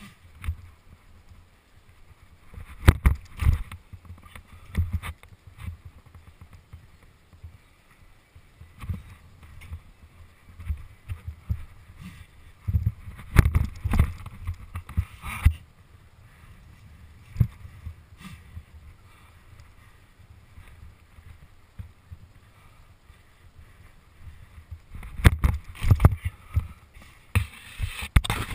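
BMX bike ridden on concrete, heard from a camera mounted on the bike: a low rolling rumble of tyres and frame, broken every few seconds by clusters of sharp knocks and clatters as the bike is jolted and the handlebars are spun. The heaviest clatters come about halfway through and near the end.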